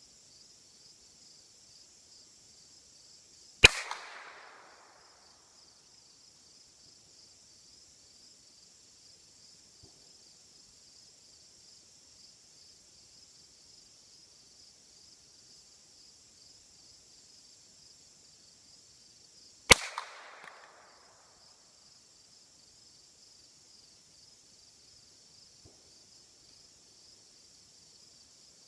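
.22 LR rifle fired twice, about sixteen seconds apart, each sharp crack trailing off in a short echo. Insects trill steadily throughout.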